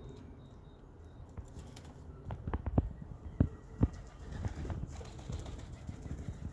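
Seagulls close by: a few sharp flaps or knocks between about two and four seconds in, over a steady low rumble.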